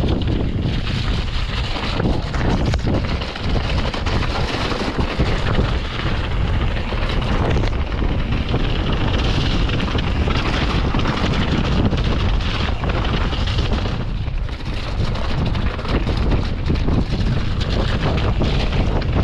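Wind blowing across the microphone: a loud, steady low rumble with hiss on top, easing briefly a few times.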